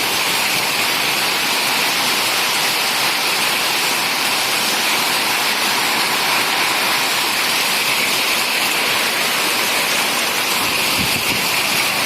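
Heavy rain and hail pelting down during a storm: a loud, dense, steady hiss.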